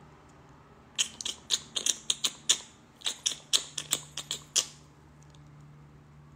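A quick, uneven run of about twenty sharp clicks or taps, starting about a second in and stopping before the five-second mark.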